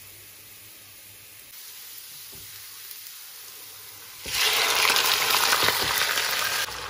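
Faint steady hiss, then about four seconds in raw chicken pieces hit hot oil and fried onions in a wok and set off a loud, crackling sizzle that eases a little near the end.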